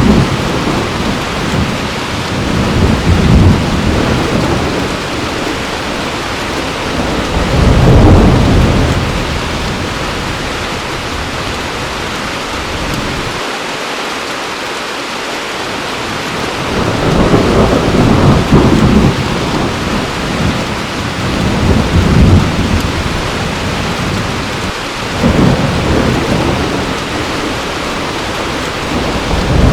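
Heavy rain falling steadily, with thunder rumbling again and again, swelling and fading every few seconds. There is a brief lull in the thunder about halfway through.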